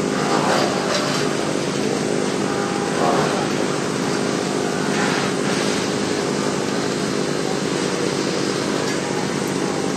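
A small engine running steadily, with a few short louder swells about half a second, three and five seconds in.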